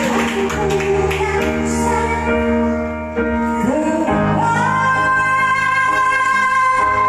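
A woman sings with a live band. About four seconds in she holds a long, high-pitched note while the band's low notes drop out beneath it.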